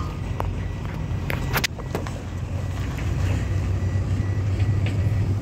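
Vehicle engine running with a steady low hum, with a few short knocks about a second and a half in.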